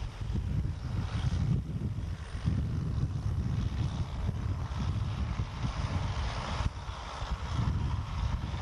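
Diesel tractor engines running steadily as an International 785 XL Turbo pulls a round baler through windrowed hay, with a heavy, uneven low rumble.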